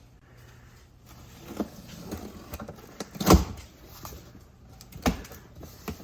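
A cardboard box being handled and opened: scattered knocks and rustles, with a heavier thump about three seconds in and another knock near the end.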